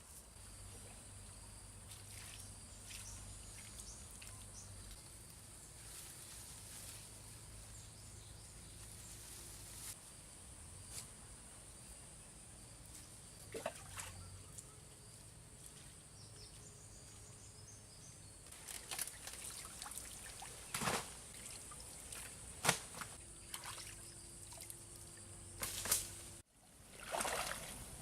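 Water trickling and pouring into a fish pond, with a string of short splashes and clicks in the second half.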